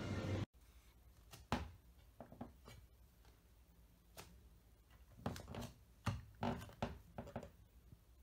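Faint, scattered soft knocks and taps, with a cluster of them near the end: bare feet on a wooden floor stepping onto a glass bathroom scale.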